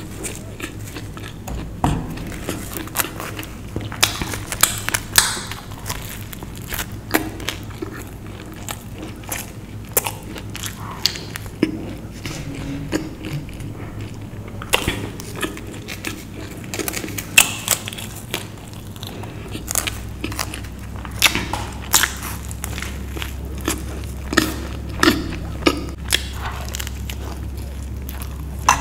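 Close-miked chewing of a pizza slice: crisp crust crackling and crunching between teeth, with wet mouth and lip-smacking clicks in an irregular run. A steady low hum sits underneath and grows stronger about two-thirds of the way in.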